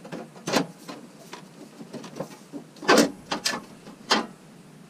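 Plastic wheel-well liner being handled and pushed back into place: a handful of sharp plastic knocks and clicks, the loudest about three seconds in.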